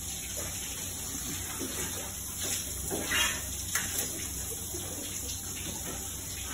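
Water running from a tap into a stainless steel sink, steady, with a few light clatters near the middle.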